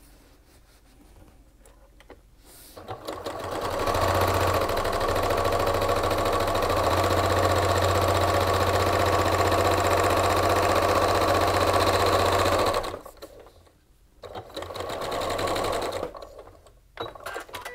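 Sewing machine quilting a straight line through fabric and cotton batting: after a few quiet seconds it runs steadily at speed for about nine seconds, stops, then runs again briefly for about two seconds.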